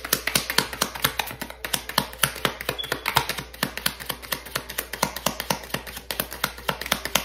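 A deck of oracle cards being shuffled in the hands, the cards clicking against each other in a rapid, irregular patter of several clicks a second.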